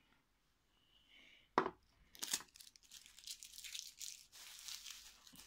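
A single knock as the watch box is set down on the table, then the mailing envelope and packaging rustling and crinkling as they are handled, for the last three seconds or so.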